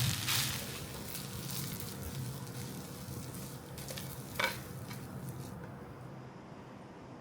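Homemade tocino (sweet cured pork) sizzling as it fries in a pan, with stirring scrapes and one sharp click about two-thirds of the way in. The sizzle dies down near the end.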